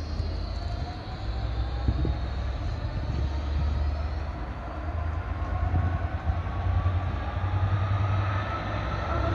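Train accelerating, its motor whine rising steadily in pitch over a low rumble.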